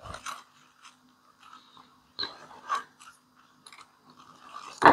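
Clicks, creaks and knocks of a plastic modular transfer-switch housing and its circuit board being gripped and handled, a few distinct knocks with the loudest near the end, over a faint steady low hum.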